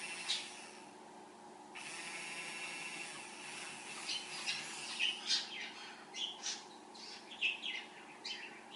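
Small DPM-25-N3-01 DC motor of a homemade mini drill spinning a thin bit in a brass collet chuck, giving a steady electric whine. Just after the start a click comes and the whine drops out for about a second and a half, then resumes. Over its second half come irregular short high chirps.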